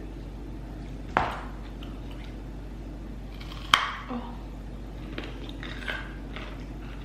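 Two loud, sharp crunches of bites into raw vegetables, about a second in and again near the middle, followed by softer chewing sounds, over a steady low hum.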